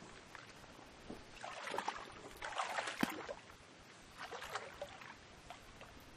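Wet mud and water sloshing and scraping as an arm digs into a crab burrow in a muddy creek bank, in irregular bursts, loudest about halfway through with one sharp click.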